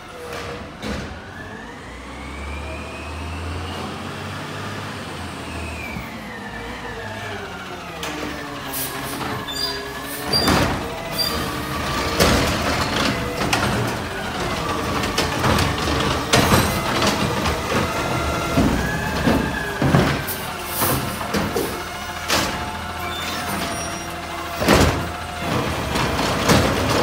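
McNeilus automated side-loader garbage truck pulling up, its engine and hydraulics whining up and then down in pitch. It then stands at a cart while the automated arm works, with repeated knocks and clatters and a loud bang near the end.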